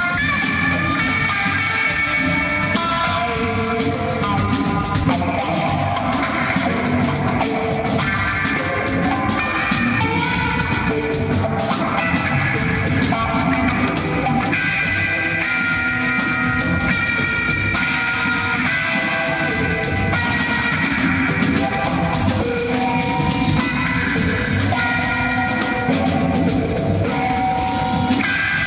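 Live rock band playing: an electric guitar through Marshall amplifiers plays a lead line of held notes stepping from pitch to pitch over a busy drum kit.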